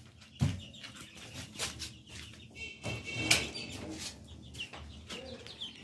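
Rustling and light knocks with a few scattered high duckling peeps, and a short squeaky call about three seconds in.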